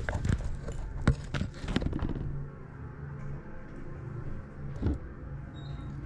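Inside a Guthrie hydraulic elevator car: a steady low hum, with a run of sharp clicks and knocks in the first two seconds and one more about five seconds in.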